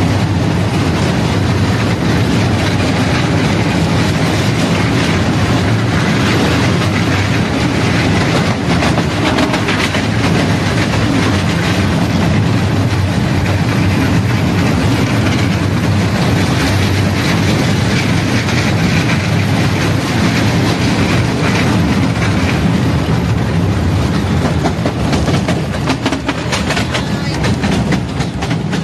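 Miniature amusement-park ride train running along its small-gauge track, heard from on board: a steady, loud rattling of wheels on the rails that keeps up the whole way round.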